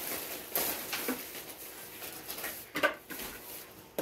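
Short rustles and light knocks of groceries being handled as cans of tuna are picked out, with a sharp click near the end.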